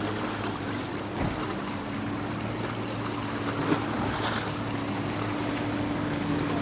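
Boat engine running with a steady hum, over a wash of surf and wind buffeting the microphone.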